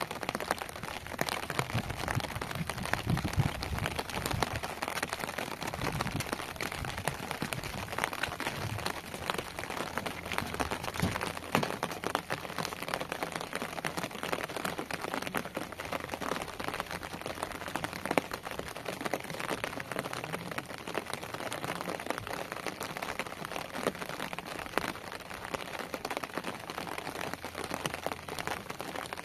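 Steady rain falling, a dense patter of drops on the surfaces around, with some low rumbles in the first several seconds.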